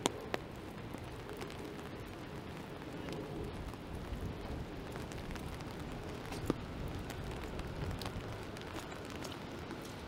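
Steady rain pattering on an open umbrella overhead, with a few sharper drops tapping on it: two just at the start and a louder one about six and a half seconds in.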